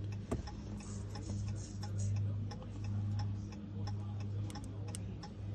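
Light, rapid ticking over a steady low hum, with one sharper click just after the start.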